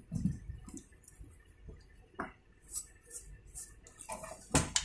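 Scattered light clicks and taps with short brushing swishes as a desktop motherboard is handled and brushed clean, with a louder knock near the end.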